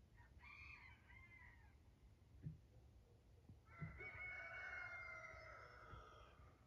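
A rooster crowing faintly: a short call near the start, then a long, drawn-out crow from about four seconds in. Two soft knocks fall between them.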